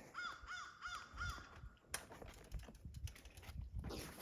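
A bird giving four short, harsh arched calls in quick succession, then falling quiet, over a low rumble; a rush of hissing noise rises near the end.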